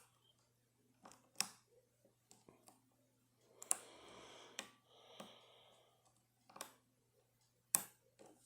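Lock picks working inside a Eurospec MP10-based euro cylinder lock: scattered sharp metallic clicks at irregular intervals as pins are set, with two brief soft hissing rustles in the middle.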